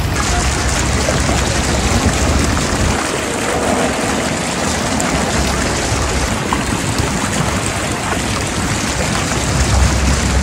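Wind blowing across the microphone: a steady rushing noise with a low rumble that swells near the end.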